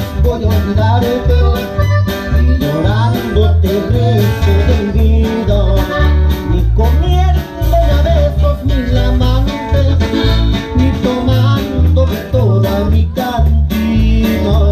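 A live regional Mexican band playing through a PA speaker: a strong, pulsing bass line under guitars, with a sung melody on top.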